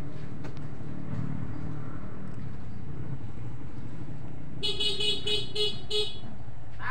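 A vehicle horn tooting about five times in quick succession, starting about two-thirds of the way in, over a steady low background rumble.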